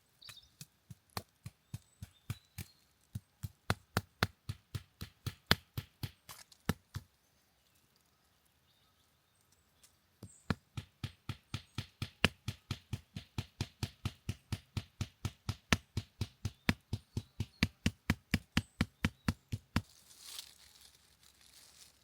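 Two runs of rapid, evenly spaced sharp chopping knocks, about four a second. The first run stops about a third of the way in, and the second starts again after a pause of about three seconds.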